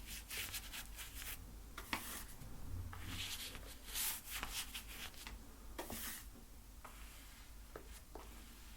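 Paint being worked onto a canvas in short, irregular scrubbing strokes, bristly and dry-sounding, with a few light taps between them.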